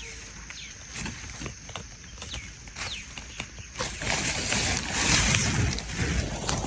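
Outdoor sounds with a steady high-pitched whine, short falling chirps and scattered clicks. About four seconds in, a louder rushing noise, like splashing or sloshing water, comes in.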